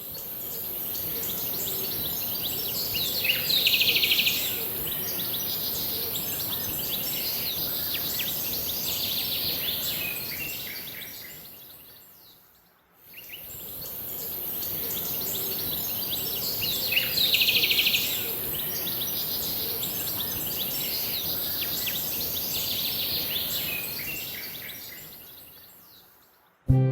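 Added nature-ambience sound effect of birds chirping over a steady high hiss. The same stretch plays twice, fading out and back in about halfway through. A burst of dense chirping stands out about four seconds in and again about seventeen seconds in.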